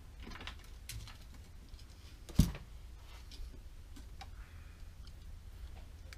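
Scattered faint clicks and handling noises from tools and parts on a workbench, with one sharp knock about two and a half seconds in.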